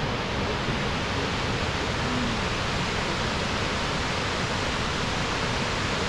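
Fukuroda Falls, a large four-tiered waterfall, pouring with a steady, even rush of water.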